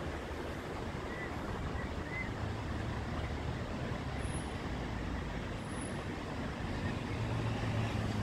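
Steady rumble of road traffic, with a low engine hum that swells twice.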